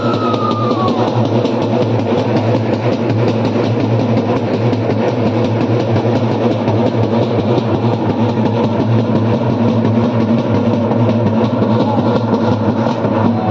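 Fast, loud drumming, a dense run of rapid strokes, over the noise of a crowd.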